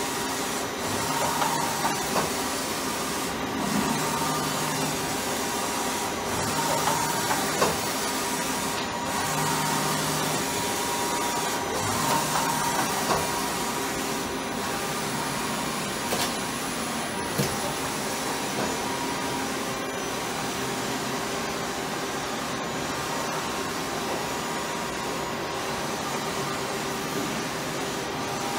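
Steady hum and hiss of machine-shop machinery running, with a Takisawa EX-110 CNC lathe under power among it. Short low hums and a few light clicks come and go in the first half.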